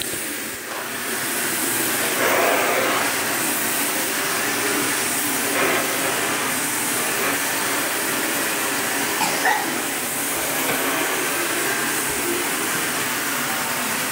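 Canister vacuum cleaner running steadily as its nozzle is pushed over the floor.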